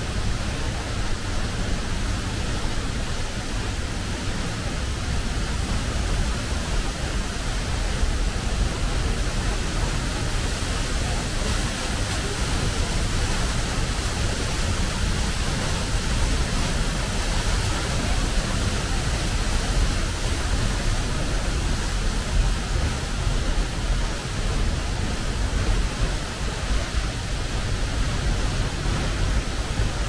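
Steady rushing noise with a deep rumble underneath, unbroken throughout.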